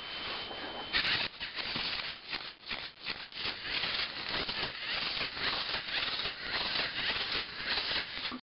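LEGO Mindstorms NXT 2.0 making a dense, irregular rattling clatter, which the owner thinks is a bad sound and may not be normal. A steady high beep cuts off about a second in, just as the rattling starts.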